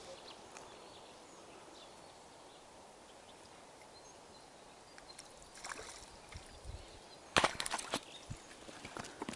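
Quiet lakeside ambience, then clicks and rustles of fishing tackle being handled, with a burst of sharp knocks about three quarters of the way through.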